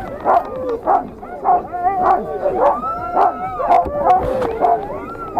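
A team of harnessed sled dogs barking and yelping together, many dogs at once: short sharp barks about every half second over wavering, howl-like yelps that rise and fall.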